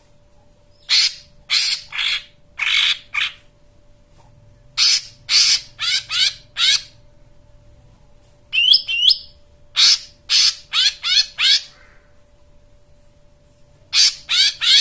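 Cucak ijo mini (lesser green leafbird) song: runs of four or five short scratchy notes with pauses between, and a brief twisting whistle in the middle. A faint steady hum lies underneath.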